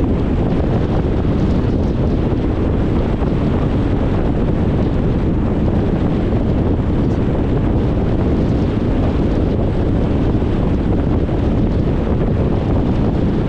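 Steady road noise of a car driving: tyre and wind noise, a deep, even hiss with no breaks.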